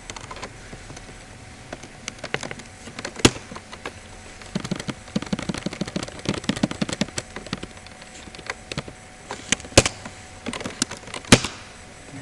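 Typing on a computer keyboard: a quick flurry of keystrokes in the middle, with scattered single clicks and a few louder sharp clicks.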